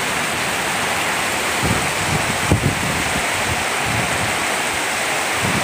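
Heavy rain pouring down in a dense, steady hiss. A few brief low thuds come about two seconds in.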